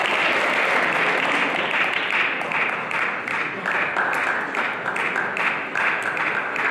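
Crowd applauding. About two seconds in, the applause turns into rhythmic clapping in unison, about two and a half claps a second.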